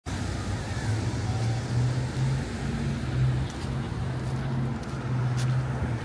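Steady low hum of a motor vehicle engine, with road traffic noise over a constant outdoor background.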